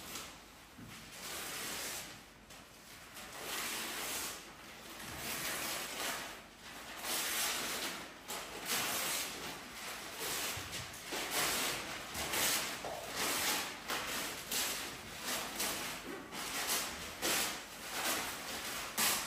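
Plastic bags and sheeting handled by hand, crinkling and rustling in irregular surges that swell and fade, coming thicker in the second half.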